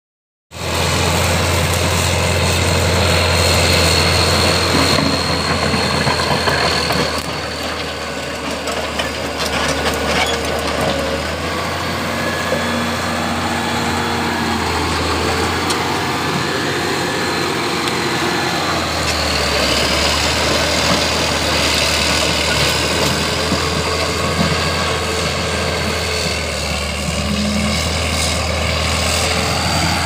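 Caterpillar D6D crawler bulldozer's six-cylinder diesel engine running steadily as the dozer travels and pushes dirt, a deep drone with a thin high whine over it. It eases off slightly midway, then picks up again about two-thirds of the way through.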